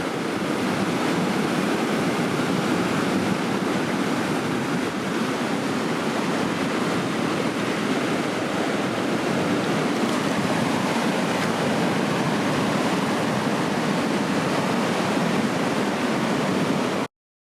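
Steady rush of ocean surf from typhoon swell, an even wash of breaking-wave noise that cuts off abruptly near the end.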